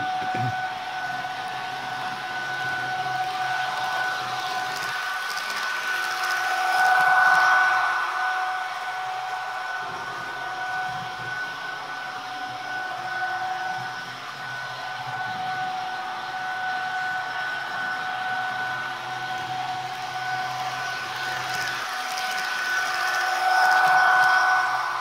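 Sound decoder in an H0-scale model of an ÖBB 1116 Taurus electric locomotive playing its running sound through the model's small speaker: a steady two-note electric whine over a hiss. It swells louder twice, about seven seconds in and again near the end.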